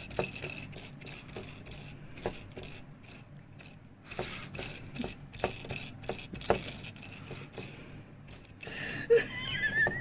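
Scattered light clicks and taps, with a short high wavering whine near the end.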